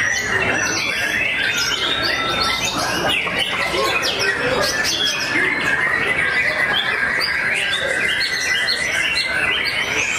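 A white-rumped shama (murai batu) singing among many other caged songbirds, a dense overlapping chorus of loud whistles, trills and chirps that never pauses.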